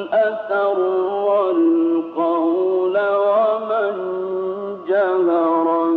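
A male Quran reciter chanting in the melodic mujawwad style, holding long notes that bend and turn in ornamented runs, with short breaks between phrases. The sound is thin and narrow, as an early-1970s recording.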